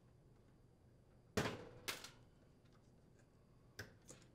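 Wire connectors being pulled off the terminals of an oven door lock motor: two sharp clicks about half a second apart, then two fainter clicks near the end.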